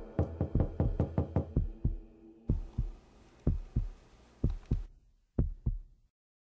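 Heartbeat sound effect: deep thumps beating fast, about five a second, then slowing into paired lub-dub beats about a second apart, and cutting off suddenly about six seconds in. A sustained droning note sounds under the fast beats and stops about two and a half seconds in.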